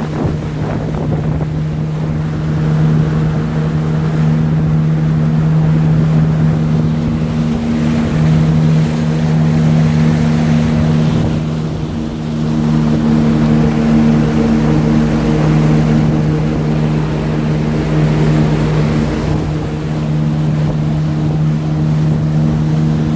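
Heyday WT2 wake boat's inboard engine running at a steady drone while the boat holds wakesurf speed, with rushing water and wind on the microphone.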